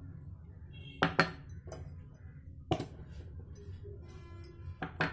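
Kitchen containers clinking and knocking against a plastic mixing bowl as dry ingredients are tipped in: about five sharp separate clinks, two close together about a second in, one near the middle and two near the end, over a steady low hum.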